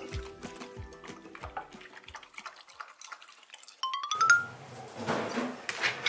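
Border collie lapping water from a bowl, a run of quick wet clicks, over background music with a steady beat that stops about two seconds in. About four seconds in, a short rising chime sound effect plays, followed by a noisy stretch.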